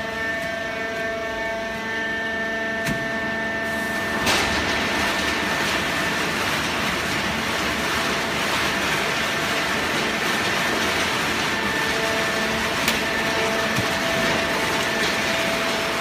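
Fully automatic horizontal hydraulic baler running, its pump and motor giving a steady whine of several tones. About four seconds in, a louder steady rushing noise sets in abruptly over it, with an occasional click.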